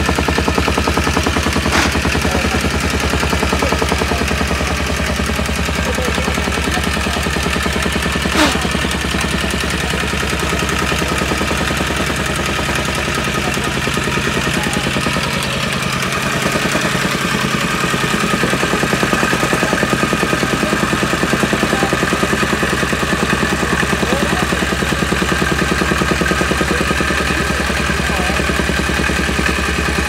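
Petrol tamping rammer (jumping-jack compactor) running and pounding dirt fill, its small engine driving a rapid, steady machine-gun-like hammering of the foot on the ground.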